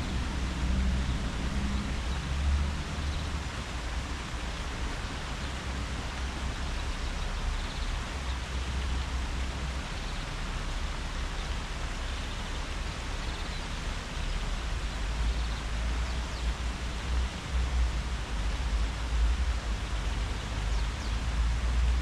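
Wind rustling through tree leaves as a steady hiss, with a low, uneven rumble underneath.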